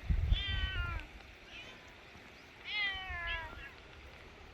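Street cat meowing twice, each meow falling in pitch, the second about two seconds after the first.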